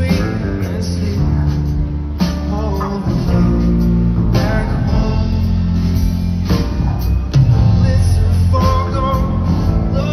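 Live rock band playing loud and continuously, with electric guitar, bass guitar, drums and keyboards, as heard from the audience floor.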